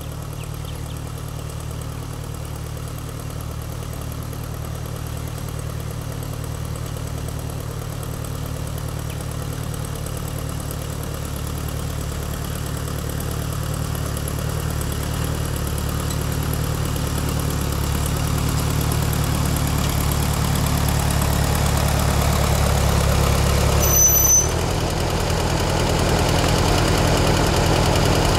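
1955 Ford 650 tractor's four-cylinder engine running steadily while pulling a disc harrow through the soil, growing louder as the tractor approaches. A brief high squeak comes near the end.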